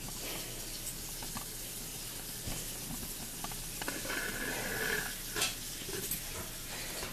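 Steady hiss of room noise, with a few faint knocks and a brief high tone about four seconds in.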